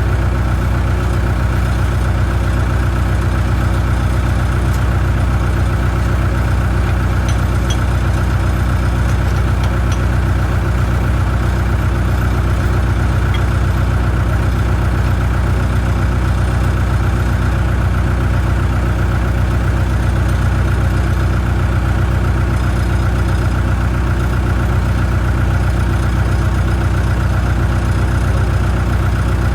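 Mobile concrete pump's diesel engine running steadily at a constant speed.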